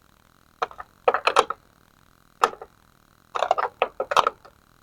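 Metal-on-metal clicks of a 14 mm wrench working a turn signal's mounting nut tight, in five short bursts of rapid clicks with pauses between.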